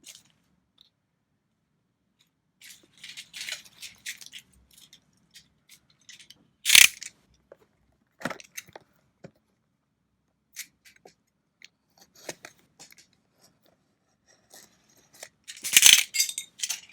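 Handling and opening a cardboard booster box: scattered rustling and scraping, a sharp snap about seven seconds in, and a louder burst of handling noise near the end.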